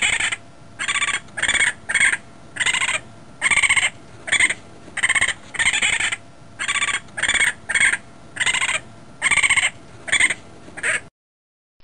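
Raccoon calling: a steady run of short, high-pitched squealing calls, roughly two a second, that stops shortly before the end.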